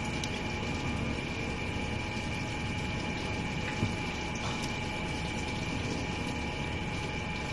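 Poultry gizzard cuticle-removal machine running: its electric motor and toothed rollers turning with a steady whine over the hiss of the water that rinses the peeled cuticle off the rollers. One light knock about halfway through.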